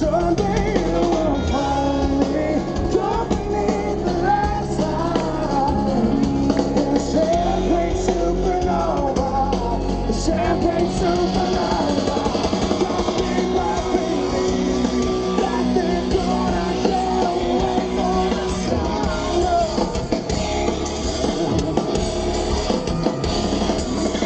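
Live rock band: a man singing lead into a microphone over electric guitar and drums.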